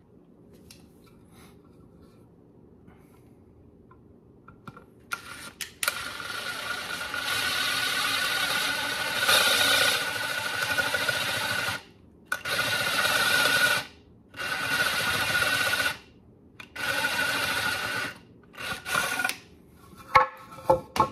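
Cordless drill boring into a pine 2x4 with a spade bit: one long run of about seven seconds, then three shorter bursts, then a few knocks near the end.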